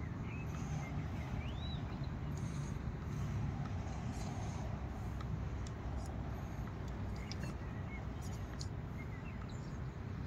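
Steady low outdoor rumble, with a few short bird chirps about a second in and again later on.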